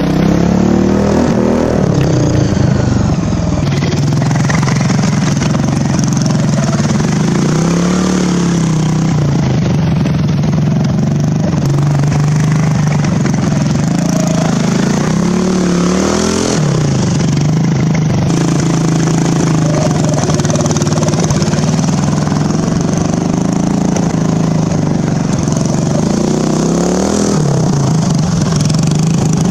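Small Briggs & Stratton engine of a hot-rodded Poulan Pro riding lawn mower running hard at speed, its pitch rising and falling back about four times as the throttle is worked, with some rattle from the machine.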